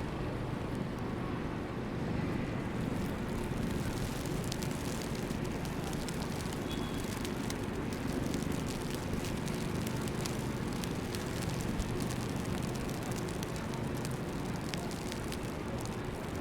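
Steady city street noise: a low traffic rumble with a continuous light, irregular crackle on top from about three seconds in.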